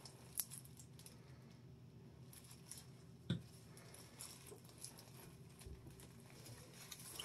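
Near silence with faint handling noises from gloved hands working hair dye through the hair: light rustling, a small click just under half a second in and a soft knock about three seconds in.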